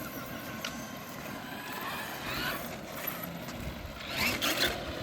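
Electric RC car driving on a road, tyre noise on the asphalt with brief rising motor whines as it speeds up, about two seconds in and again louder near the end.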